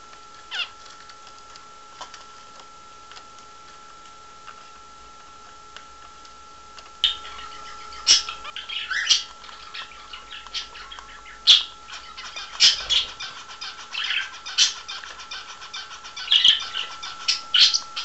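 Pet cockatiels and a lovebird calling: a couple of brief chirps at first, then from about seven seconds in a rapid string of short, shrill squawks and chirps. A steady thin whine sits underneath.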